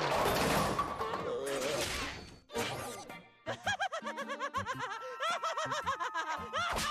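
A loud cartoon crash for about the first two and a half seconds, then a young cartoon pig laughing in a rapid giggle over music.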